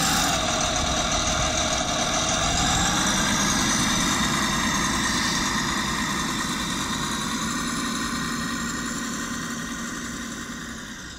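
Self-built 1:8-scale hydraulic RC model of a John Deere 9560R running as it works, a steady mechanical whine that rises in pitch a few seconds in. The sound fades out near the end.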